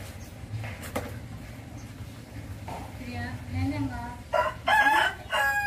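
A rooster crowing in the last second and a half, a loud, long call that drops in pitch at the end, with a softer, lower call just before it.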